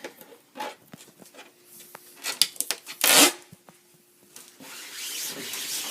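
Folded paper towel rubbing and crinkling against a silkscreen's mesh as ink is wiped off, with scattered crackles, one loud scraping rustle about three seconds in, and steady rubbing near the end.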